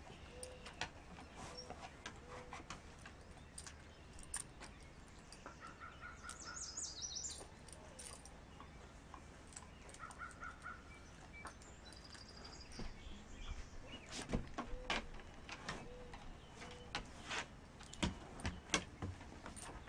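Faint bird calls, short repeated caws and chirps, over a quiet outdoor background, with scattered light clicks and taps that grow busier and louder in the last third.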